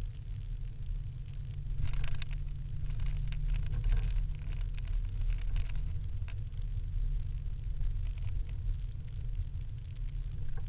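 Steady low rumble of a car driving fast across a dry lakebed, heard inside the cabin. Scattered rattling crackles come through between about two and five seconds in.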